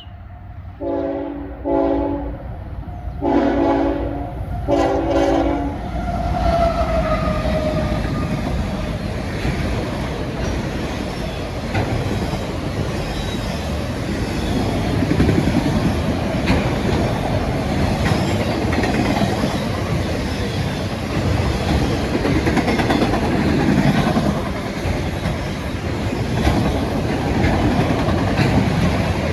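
CSX freight train Q205's locomotive air horn sounding four blasts in a chord during the first six seconds, then the train passing close, its wheels running steadily on the rails.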